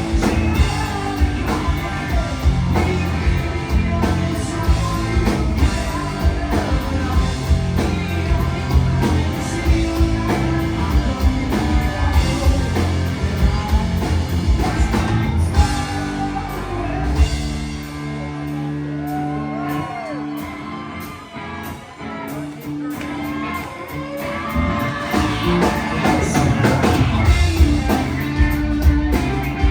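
Rock band playing live: electric guitars, bass and drum kit with lead vocals. The band drops to a thinner, quieter passage a little past the middle, then builds back up to full volume near the end.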